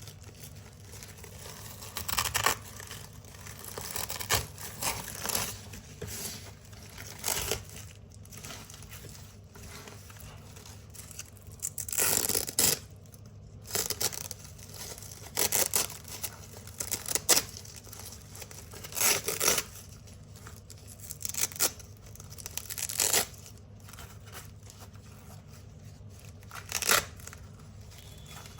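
Strips of black hook-and-loop (Velcro) tape being ripped off a large roll, one short crunchy rip after another with pauses between, about a dozen rips in all.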